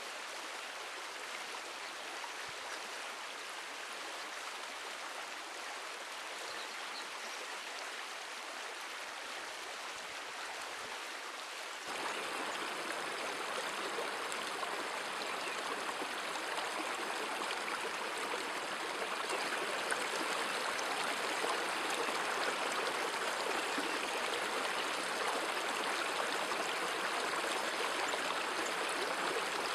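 Small stream flowing over stones: a steady rush of running water that gets louder about twelve seconds in.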